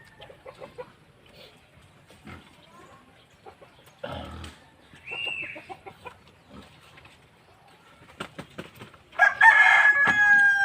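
A rooster crows once near the end, a loud call held for about a second and a half. Before it come scattered small clicks and knocks and a brief high chirp.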